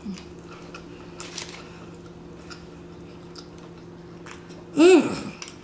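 Close-miked chewing of a smash burger: a bite, then wet mouth clicks and smacks. About five seconds in the eater gives one short, loud voiced sound with a curving pitch, over a steady low hum.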